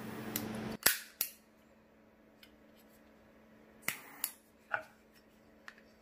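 Zippo butane torch lighter insert hissing with its jet flame, which cuts off with two sharp clicks about a second in. Later come a few short metal clicks and clinks from the lighter cases as they are handled.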